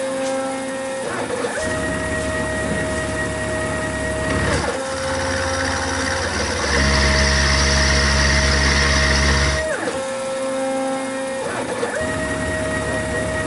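Milling machine taking bevel passes in cast iron with a 1/4-inch ball end mill: the machine's drive whines in steady tones that slide to a new pitch every few seconds as the cut changes direction, with a deeper hum for a few seconds at a time.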